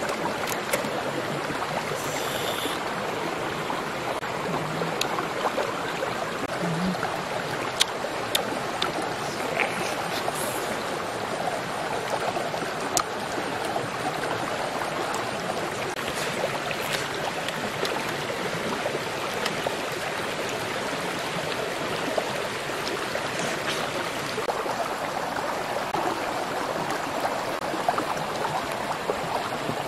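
Steady rushing of running water, like a stream, with a few faint clicks over it.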